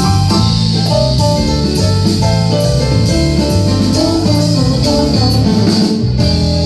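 Live band playing an instrumental passage with guitar and drum kit.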